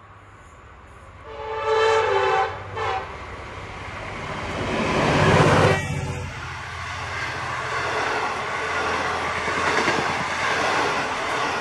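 Diesel-hauled train sounding its horn, one long blast and then a short one, then passing close: the locomotive's engine is loudest about five seconds in, followed by the steady rolling rumble of the train's cars going by.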